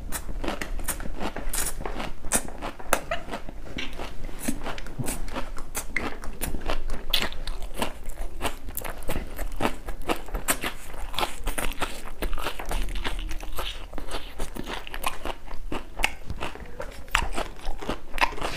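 Close-miked crunchy chewing and biting of raw vegetables and fresh greens in a singju salad, many sharp, irregular crunches.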